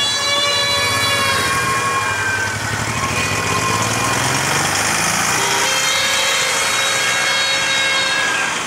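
Escort vans, a motorcycle and an ambulance drive slowly past with an engine running. Long, steady warning tones sound in several held spells, one near the start and another from about six seconds in.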